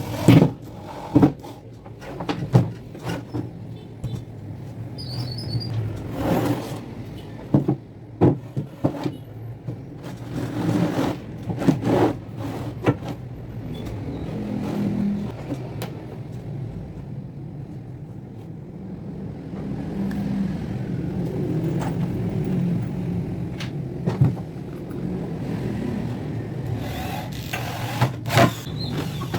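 Repeated sharp knocks and clatter, as of parts being handled and fitted, over a low steady rumble that swells a little in the middle and again near the end.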